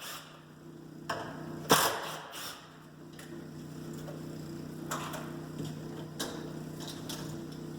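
Metal clicks and clacks of a Schlage deadbolt latch being handled and worked: one sharp click a little under two seconds in, then lighter clicks every second or so.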